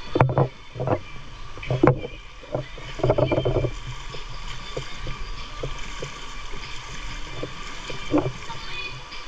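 Irregular water splashes and sloshing from people swimming in a river, strongest in the first few seconds and again briefly near the end, over a steady background noise.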